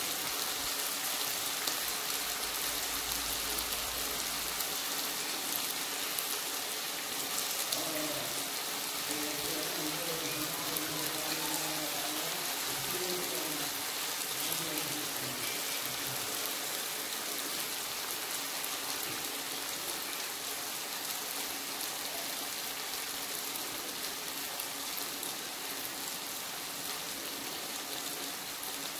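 Pieces of chilli-and-salt-marinated tuna deep-frying in hot oil: a steady sizzle as more pieces are dropped in by hand.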